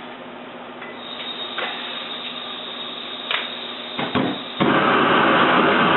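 A few clicks and knocks, then about four and a half seconds in a portable space heater starts up with a sudden, loud, steady whoosh that keeps going.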